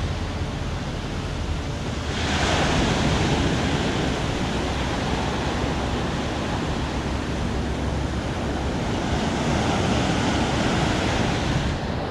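Ocean surf washing on the shore, with wind buffeting the microphone; the wash swells louder about two seconds in and eases just before the end.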